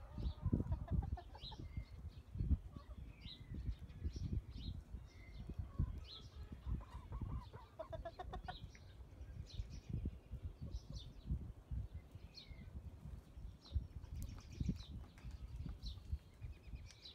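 Backyard hens clucking and calling in short, scattered high notes, with a low, irregular rumble underneath throughout.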